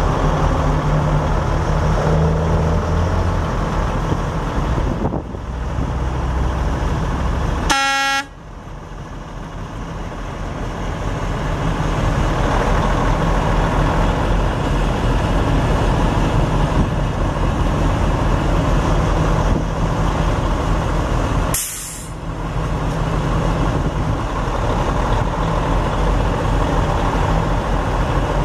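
Cummins N14 inline-six turbo diesel of a 2001 Freightliner Columbia 120 semi truck running, with a short horn toot about eight seconds in. The engine sound drops right after the toot and builds back up over the next few seconds, and a brief air hiss comes about three-quarters of the way through.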